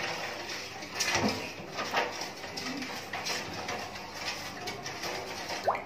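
Wooden spoon stirring water in a stainless steel pot to dissolve sugar, with a few scattered knocks of the spoon against the pot.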